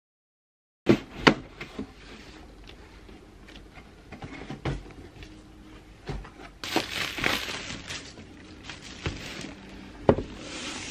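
A shrink-wrapped MacBook Pro box being handled on a table: a few sharp knocks about a second in, a brief rustle around the middle, and another knock near the end.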